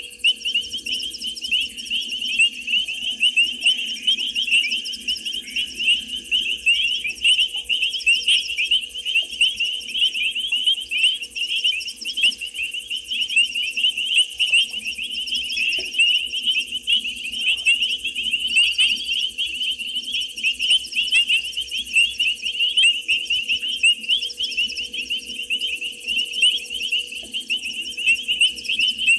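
Night chorus of frogs and insects at a waterhole: a dense, unbroken mass of rapid high-pitched calls, with a faint steady low hum beneath.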